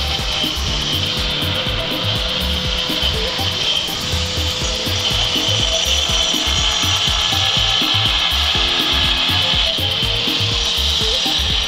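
Handheld angle grinder with a cutting disc cutting through the steel exhaust pipe of a stock Yamaha NMAX muffler: a steady, loud metal-cutting whine and hiss.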